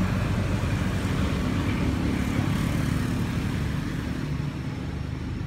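An engine running steadily with a low hum, slowly getting a little quieter.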